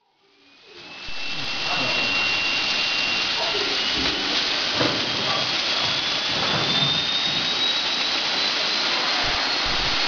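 Dog grooming blaster dryer on a stand starting up and running: a loud, steady rush of air through the hose with a thin motor whine that climbs slowly in pitch as the motor comes up to speed.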